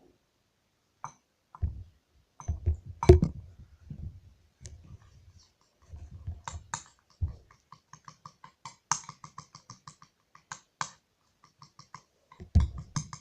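A utensil clicking and tapping against a bowl as clear glue and water are stirred together. A few dull knocks sound in the first few seconds, then a rapid run of light clicks follows in the second half.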